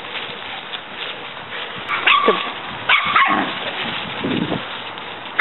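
Small dogs barking in play: short barks about two and three seconds in, and a weaker, lower call near the end.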